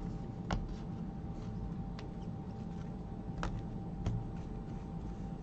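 Trading cards being handled and laid out on a table: four light clicks, spaced irregularly about a second apart, over a faint steady hum.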